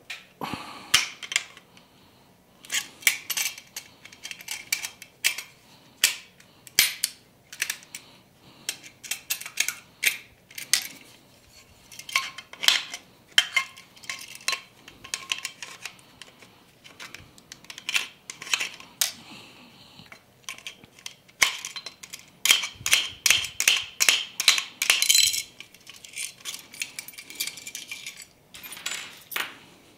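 Pliers working a steel electrical box, metal clicking and clinking against metal in irregular runs of sharp clicks, with a dense flurry a little after the middle.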